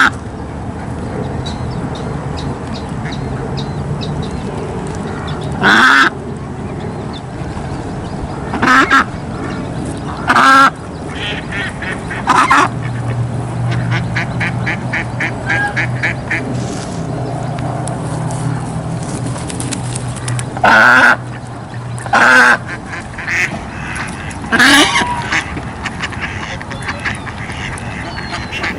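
Domestic ducks quacking: about seven loud, separate quacks spaced out over the stretch, with a low steady hum underneath.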